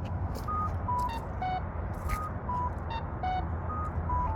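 Accessible pedestrian signal at a crosswalk: a Campbell push-button system sounding through Wilcox speakers. It plays short electronic beeps stepping down four pitches in a pattern that repeats about every second and a half, with sharp clicks between them, over steady traffic rumble.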